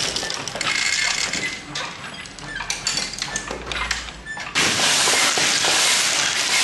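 Wooden kinetic sculpture of belt-driven pulleys and dowels running, with irregular clicks, knocks and light rattling of wooden parts. About two-thirds of the way through a dense, steady hiss begins suddenly and takes over.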